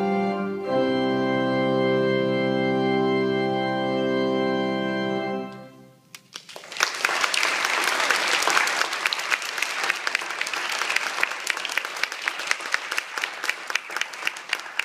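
Pipe organ holding a final chord, which moves to a new chord just under a second in and is held for about five seconds before cutting off and dying away in the hall. Audience applause breaks out about six seconds in and carries on.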